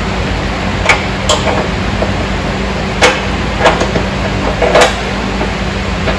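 About five short, sharp clicks and knocks, irregularly spaced, from parts being handled in a car's engine bay, over a steady background hiss.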